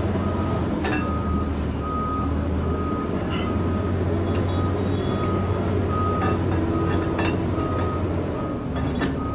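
Vehicle backup alarm beeping steadily, a little under twice a second, over the steady low drone of an idling engine. A few sharp metal clinks come through as the steel tow shackle and its pin are handled.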